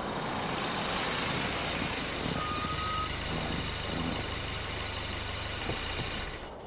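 A car rolling in over packed snow and pulling up: engine running with tyre noise on the snow. The sound stops abruptly near the end as the car comes to a halt.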